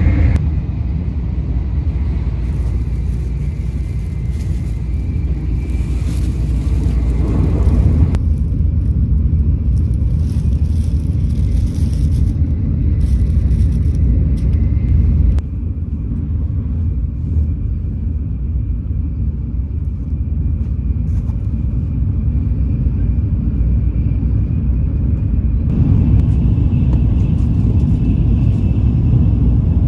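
Shinkansen bullet train running at speed, heard from inside the passenger car as a steady low rumble. The sound shifts abruptly a few times where the recording is cut.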